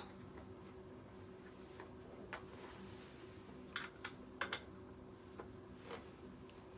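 Scattered light clicks and taps, about half a dozen, the sharpest pair about four and a half seconds in, over a faint steady hum.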